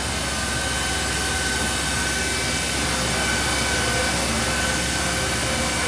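CNC vertical machining center running under power: a steady mechanical whir with a constant high whine and a low hum underneath.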